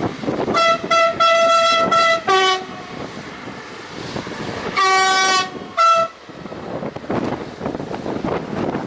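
A diesel railcar sounding its two-tone horn: a run of short high toots and then one low note, and about two seconds later a longer low note followed by a short high one. Between and after the blasts the railcar's running rumble carries on.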